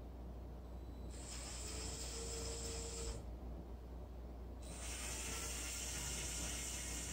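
LEGO Power Functions motor and its gearing whirring in two runs, one about a second in lasting some two seconds and another starting about four and a half seconds in. The second run is the M motor lowering the landing craft's bow ramp on its cords.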